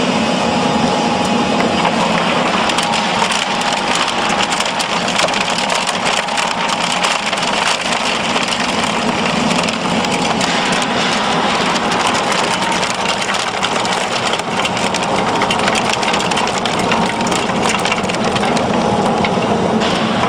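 Wood pellet production machinery running steadily while processing sawdust and wood, a constant mechanical hum under dense crackling.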